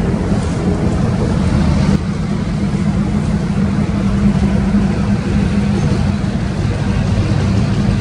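Two diesel locomotives running with a steady low engine rumble as they slowly pull a string of hopper cars.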